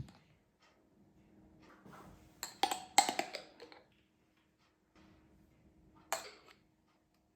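Small hard objects being handled: a quick cluster of clicks and knocks about two and a half seconds in, and a single click near the end, over a faint steady hum.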